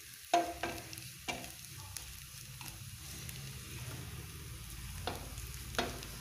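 A wooden spatula scrapes and knocks against a stainless steel pan, stirring a thick onion and chilli-powder masala frying in oil, with a steady sizzle underneath. The sharper knocks come three times in the first second and a half and twice more near the end. The spice powders are being roasted on a low flame until the chilli smells cooked.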